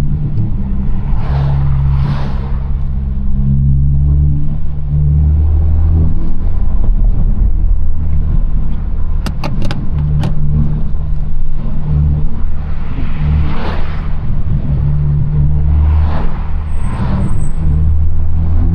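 The turbocharged 1.5-litre four-cylinder of a 2022 Honda Civic Si, heard from inside the cabin while driving. Its low drone steps up and down with engine speed, and several brief whooshing hisses come from the turbo.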